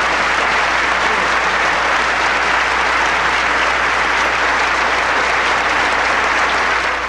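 Audience applauding steadily and loudly.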